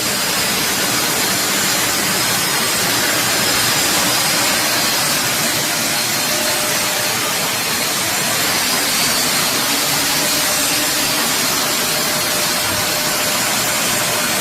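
Deerma DX115C handheld stick vacuum cleaner running steadily: a loud, even rushing noise with a faint high whine.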